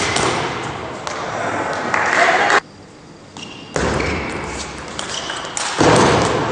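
Table tennis rally: the ball clicking off bats and the table over the background noise of a sports hall. The sound drops away for about a second in the middle, and near the end comes a loud burst of shouting as a point is won.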